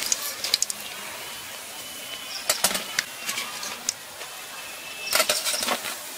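Hot oil sizzling steadily in a kadai as fried fish chops, done to a golden brown, are lifted out with a wire-mesh spider strainer. Short metal clinks of the strainer against the pan and plate come four times.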